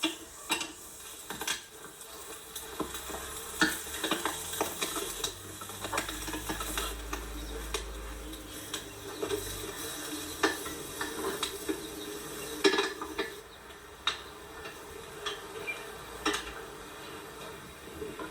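A utensil stirring in a cooking pot, knocking and scraping against it at irregular intervals, while food sizzles.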